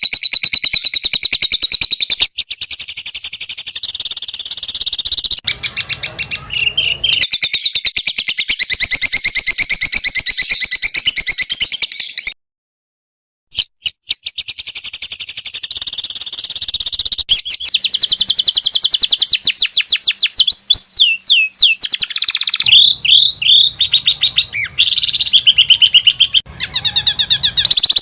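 Songbird song from a masteran recording: fast high trills and rapidly repeated chirps, broken by a brief silence about twelve seconds in. In the later part the song turns into sharper, separate whistled chirps with quick pitch glides.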